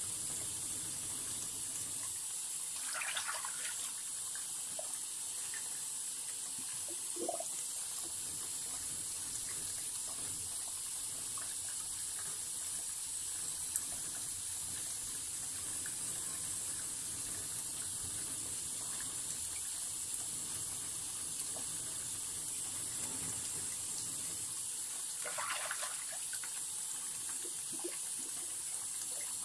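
Steady rush of water running from a tap into a sink, with a couple of brief scrapes or knocks of whetstones, one about three seconds in and one near the end.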